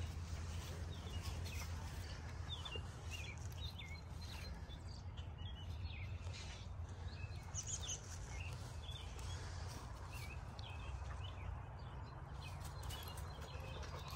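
Small songbirds chirping, with short high chirps scattered throughout, over a steady low rumble.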